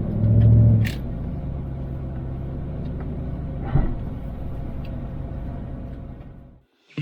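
Steady low rumble of a vehicle being driven, heard from inside. A louder low boom comes in the first second and a sharp knock about four seconds in, and the rumble fades out near the end.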